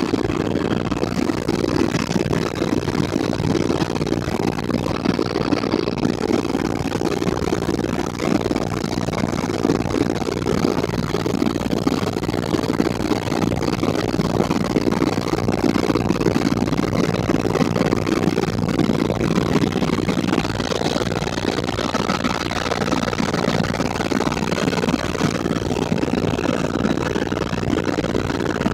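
Helicopter rotor and engine noise heard from inside the cabin: a loud, steady, deep rush that does not change, with a faint whine held above it.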